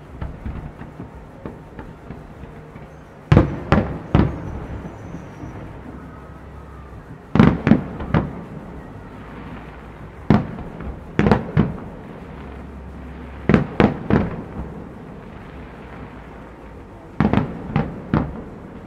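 Aerial fireworks bursting: sharp bangs in quick clusters of two to four, coming every three to four seconds, over a steady background din.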